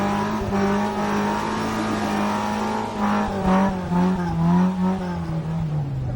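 Jeep engine running as the vehicle climbs a trail, its pitch holding steady, wavering briefly midway, then dropping near the end.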